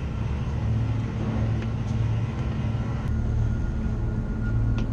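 Ferry's engines running with a steady low drone, with a few faint clicks over it.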